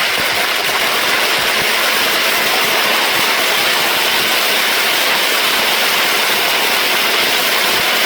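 Fireworks going off in one long, dense, steady rush of crackling noise lasting about eight seconds.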